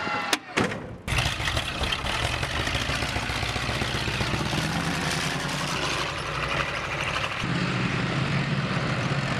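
Two sharp knocks in the first second, then a tracked armoured vehicle's engine running with a steady low rumble as the vehicle drives past.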